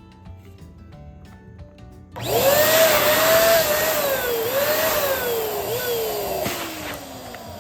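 Electric balloon pump running as it inflates a balloon, starting about two seconds in. Its hissing airflow carries a whine that wavers up and down, then falls steadily in pitch until the pump stops near the end.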